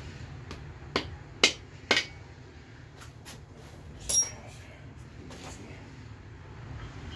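Sharp metal-on-metal taps as a bolt is used to knock a main bearing cap loose on a GM 4.3 V6 block: three taps about a second in, then a single ringing metallic clink around four seconds in.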